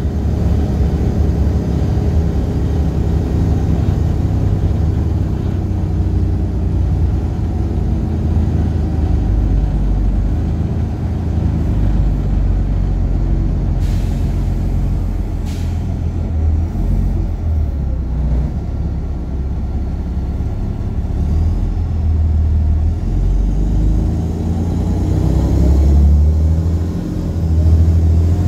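Volvo B7RLE bus's D7C six-cylinder diesel heard from inside the saloon, running with a deep, steady rumble through a blown exhaust. Two short air hisses come about halfway through, and near the end the engine revs rise and it gets louder as the bus pulls on.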